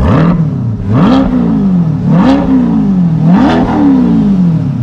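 Chevrolet C8 Corvette's 6.2 L LT2 V8, already warm, revved four times in quick throttle blips through a newly fitted stainless steel cat-back exhaust. Each rev rises and falls back toward idle, about once a second.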